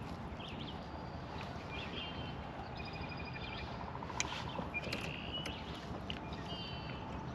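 Several birds chirping and trilling over a steady low background noise, with a sharp click about four seconds in.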